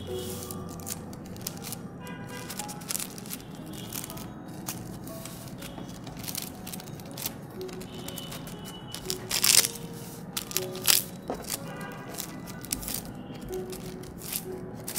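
Light background music over the rustle and crinkle of a paper envelope being folded and pressed flat by hand, with louder paper crackles about nine and a half seconds in and again about a second later.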